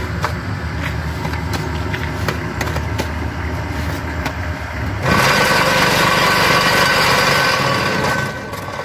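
Cement block-making machine running with a steady low hum while concrete mix is scraped into its mould with a shovel. About five seconds in, a louder, higher rattling vibration starts and stops about three seconds later: the machine's vibrator compacting the mix in the mould.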